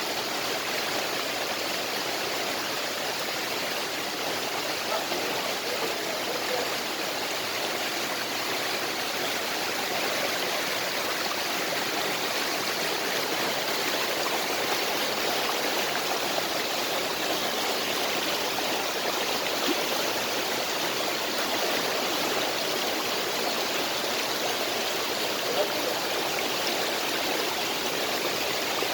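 Creek water rushing steadily over its bed.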